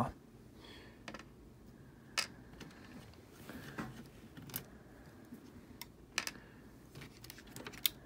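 Faint, scattered small clicks and taps of hands and a screwdriver working the last screw out of a laptop's metal motherboard plate, about half a dozen at irregular intervals, the sharpest about two seconds in.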